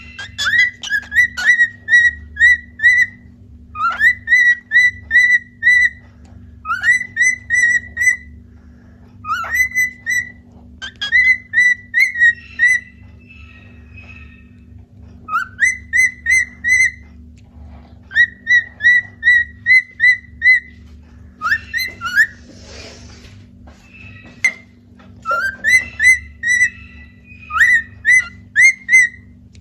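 Cockatiel whistling its song: repeated phrases of short, clear whistled notes, each phrase opening with an upward slide, with brief pauses between phrases.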